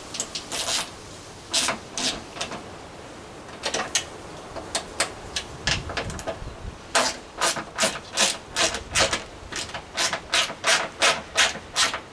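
Hand ratchet wrench clicking as it tightens the mounting bolt of a scooter's rear grab handle. The clicks come in scattered short runs at first, then steadily at about three a second from about halfway through.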